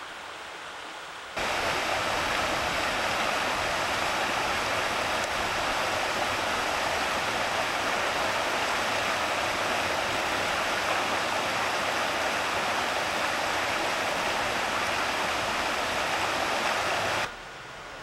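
Shallow creek flowing over stones, a steady rushing and rippling of water. It starts suddenly about a second and a half in and cuts off suddenly near the end.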